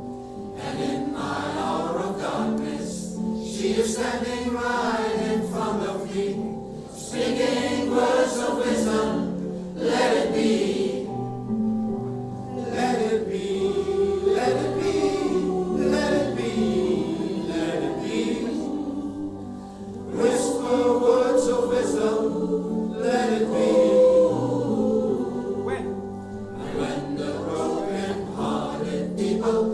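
Music with choir or group singing over instrumental backing.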